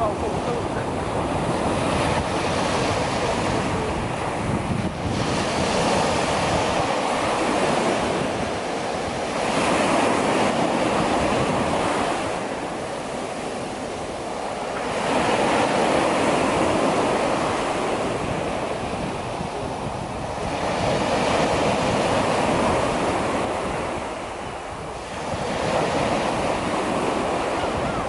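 Small sea waves breaking and washing up a sandy beach, the surf swelling and easing every few seconds, with wind rumbling on the microphone.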